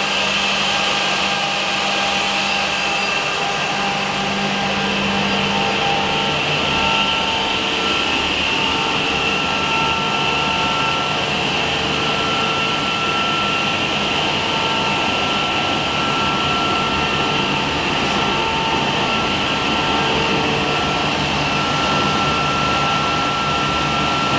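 HOMAG Optimat KL 77 edge banding machine running: a steady whir of its motors with the rush of air through the dust-extraction hoses, and a few thin whining tones that come and go.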